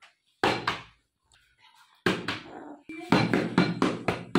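Half-filled plastic water bottle being flipped and landing with sudden thumps on a tabletop, about twice, followed near the end by a quick run of voice sounds.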